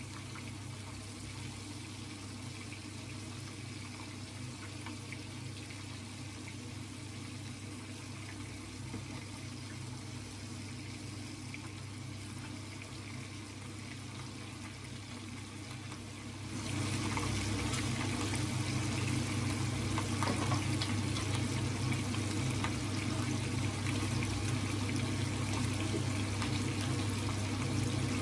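Small spice-coated fish shallow-frying in a pan of bubbling oil: a steady sizzle that grows louder a little past halfway, over a steady low hum.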